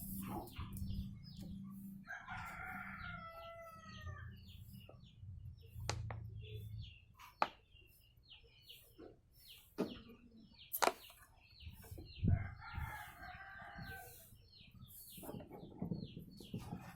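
A rooster crowing twice, each crow about a second and a half long, with small birds chirping throughout. Several sharp clicks or knocks are the loudest moments.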